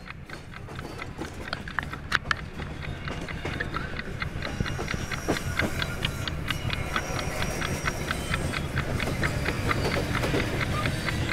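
Mumbai suburban train running along a station platform: a low rumble that grows steadily louder, with many sharp clicks and clacks.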